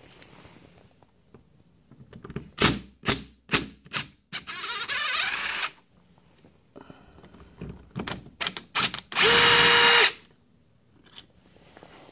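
Cordless drill-driver backing screws out of a uPVC door handle's faceplate. Short runs of the motor alternate with clicks and knocks as the bit is set on the screws, and the longest and loudest run is a steady whine of about a second near the end.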